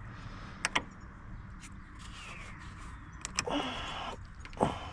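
Hand work on a hose clamped to a plastic fitting in an engine bay: two light clicks under a second in, a short scraping squeak of the hose being twisted off about three and a half seconds in, and a sharp click near the end.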